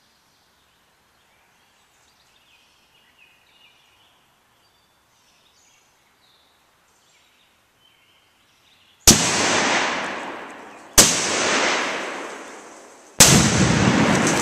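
Three loud blasts about two seconds apart, each a sharp crack followed by a long rolling echo, the last one deeper and fuller. The blasts come from shooting at a computer target with a 10.5-inch AR-15 short-barrel rifle firing 5.56 ammunition. Faint bird chirps come before them.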